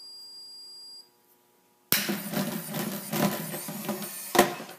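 KIBO educational robot beeps once, a steady high tone lasting about a second. After a short pause a single hand clap sets off its motors, and the robot shakes and drives on the wooden table with a rattling whir. A sharp knock near the end is the loudest sound.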